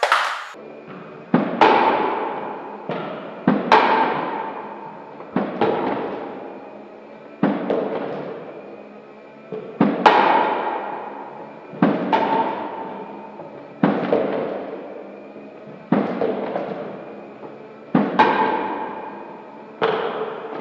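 Background music made of heavy, echoing percussion hits about every two seconds, each fading slowly over held tones.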